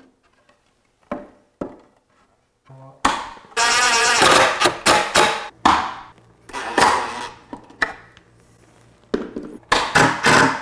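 Cordless impact driver driving pocket screws into a wooden frame joint, running in several short bursts of rapid hammering from about three seconds in. A couple of short knocks from handling the boards come before it.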